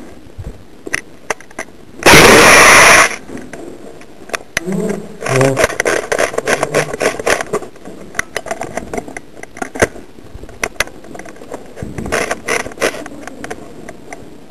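Indoor airsoft skirmish: a very loud burst of noise lasting about a second, about two seconds in, then rattling bursts of rapid clicks from airsoft gunfire, with scattered single shots and short shouts.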